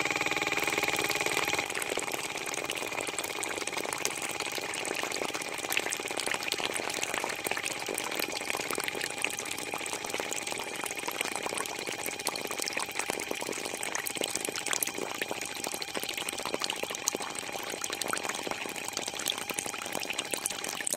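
Small electric water pump whining steadily while water runs through a hose into a plastic tank, over a fine crackle of trickling water.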